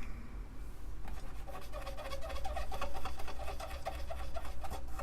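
Quick back-and-forth rubbing of an alcohol-dampened wipe on the Amiga 500's rusty RF shielding, scrubbing off surface rust. The rapid strokes start about a second in.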